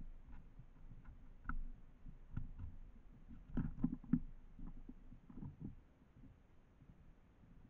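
Soft, irregular low knocks and taps, with a cluster of them about three and a half to four and a half seconds in, from a tit hopping and pecking at a garden bird feeder close to the microphone.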